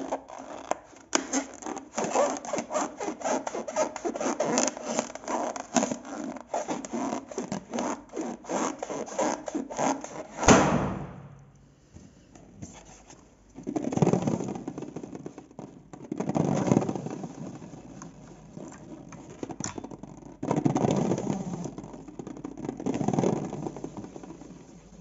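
Sticky slime being mixed and scraped, a dense crackly stream of small clicks. About ten seconds in comes one loud sharp sound, and after a quiet moment the mixing goes on in slower swells of rubbing noise.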